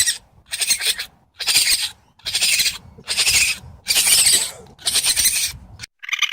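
Raccoon giving a series of harsh, hissing calls, about one a second. Near the end a different raccoon call cuts in, a buzzy trill.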